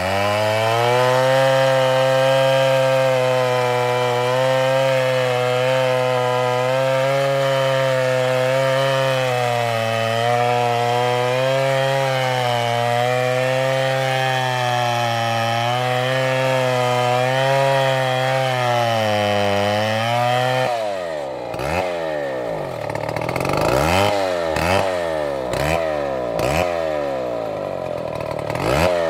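Large two-stroke Stihl chainsaw cutting into a palm trunk, its engine running steadily under load with a slight waver in pitch. About two-thirds of the way through, the revs start dipping and rising again roughly once a second.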